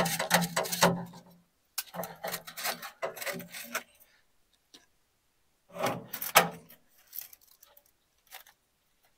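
Metal scraping, rubbing and light clinking as thermometer probes and their wires are pulled from a whole pig on an offset smoker's grate, with a grinding scrape for the first second and handling noises in clusters about two and six seconds in.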